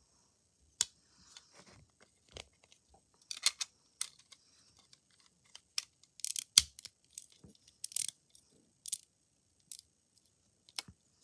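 Plastic LEGO bricks clicking and scraping as a brick-built flip phone is handled, swung on its hinge and a back plate worked against it. Irregular sharp clicks and short scrapes, the loudest a little past halfway.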